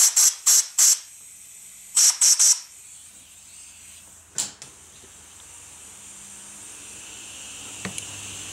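Compressed-air blow gun blasting out a freshly tapped bolt hole in a cylinder head in short bursts of hissing air, four quick ones and then three more about two seconds in, clearing the chips left by the thread tap. A single sharp click follows a couple of seconds later.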